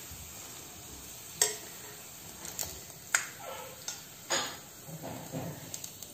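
Sabudana-potato chakli deep-frying in hot oil with a faint steady sizzle, while metal tongs and a flat metal spatula press and turn it, clinking against the pot several times.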